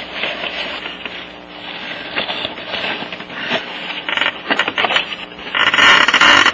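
A cloth shop towel rustling and rubbing as it is pulled out of the crankcase opening around the bare piston, with scattered handling clicks and a louder spell of rustling near the end.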